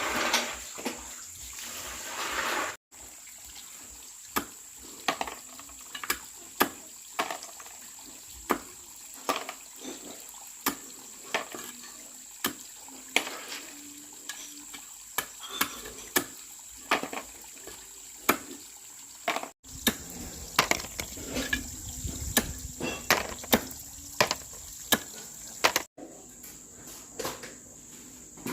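Repeated short, sharp knocks or clicks, irregular at about one to two a second, over a steady high-pitched insect drone. The sound cuts out abruptly three times.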